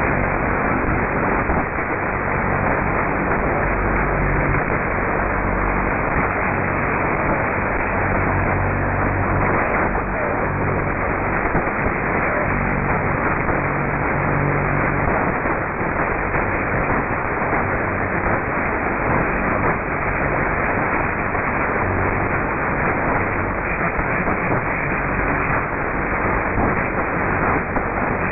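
Shortwave AM receiver tuned to 3979 kHz: steady static hiss with a low hum running through it that swells and fades. The uploader suspects the hum comes from a faulty transmitter.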